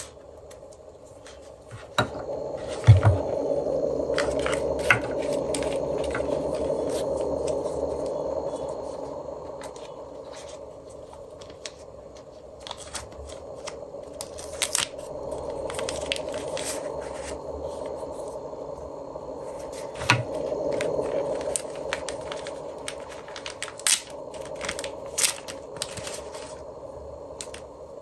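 Close handling of a DJI Osmo Pocket 3 and its plastic accessories and packaging: scattered sharp plastic clicks and taps, a small plastic pouch rustling, and two soft knocks. The first knock, about three seconds in, is the loudest; the second comes about twenty seconds in.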